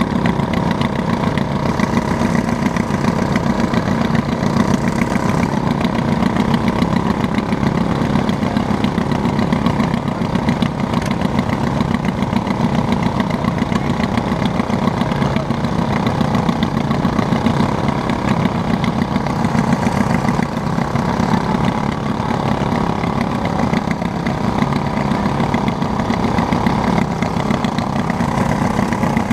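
Riding lawn mower engines idling steadily with short straight exhaust stacks, a loud, even running sound.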